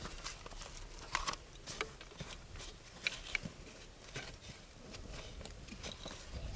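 Small household items being rummaged through and pulled off an ash-covered bamboo shelf: scattered light clicks and knocks.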